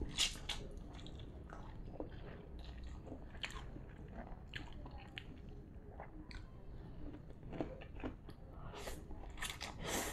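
A person eating instant fried noodles with half-raw bitter gourd: chewing with crisp crunches throughout, and slurping noodles in at the start and again near the end.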